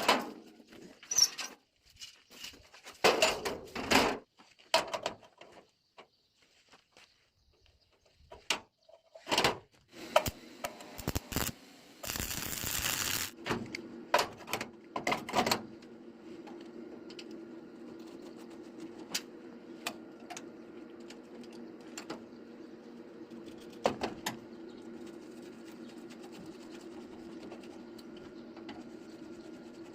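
Iron pieces knocked and clanked while being handled, with a short hiss about twelve seconds in, then a machine starting up and running with a steady hum, broken by an occasional knock.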